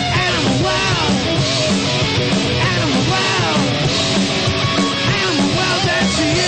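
Punk rock band playing live, loud and dense, with sliding notes that swoop down and back up about once a second.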